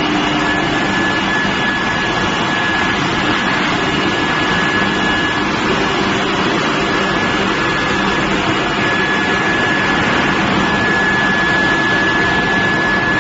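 Steel billet induction heating furnace line running: a steady, loud industrial noise with a constant high-pitched whine held through it.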